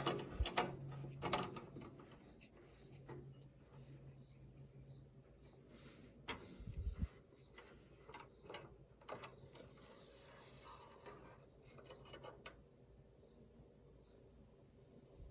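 Faint handling noises of a garden tractor's engine dipstick being wiped and worked back into its tube: a scatter of light clicks and knocks, one dull thump about seven seconds in. A steady high thin whine runs underneath.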